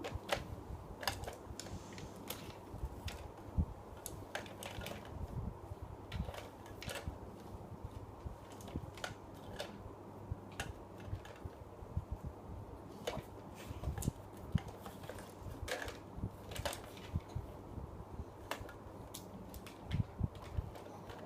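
Irregular sharp clicks and small taps, a few each second, over a steady low hum.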